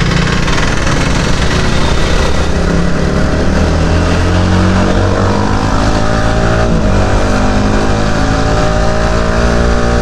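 Yamaha R15 V3's 155 cc single-cylinder four-stroke engine accelerating hard through the gears. Its pitch rises, drops at a gear change about seven seconds in, then rises again as road speed climbs.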